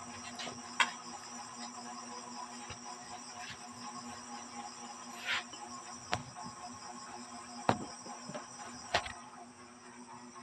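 Steady high-pitched chirring of night insects, crickets, throughout, with several sharp knocks and taps scattered through it.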